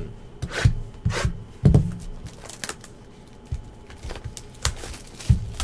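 A shrink-wrapped cardboard trading card box being handled and its clear plastic wrap torn open: scattered taps and knocks of the box on the table, with rustling and crinkling of the plastic.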